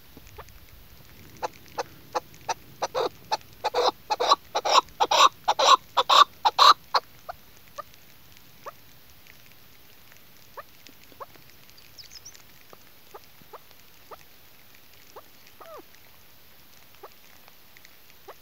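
Female chukar partridge calling: a run of short chuck notes that comes faster and louder over about five seconds, then breaks off into scattered single notes.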